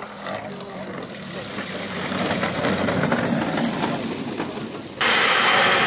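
RC model aircraft engine running in the background, a steady rushing noise that grows louder over the first few seconds. It jumps abruptly to a louder rush about five seconds in.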